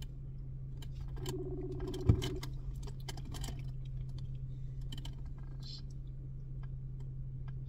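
Phone ringback tone through a smartphone's speakerphone: one ring lasting about a second, starting a little over a second in, while the call waits to be answered. A sharp click, the loudest sound, comes just after the ring, and scattered light clicks of the phone being handled follow over a steady low hum.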